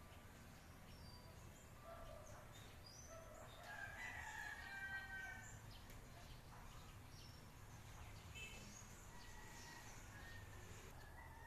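Faint rooster crowing: one long call about a third of the way in and another near the end. Small birds chirp over a low steady hum.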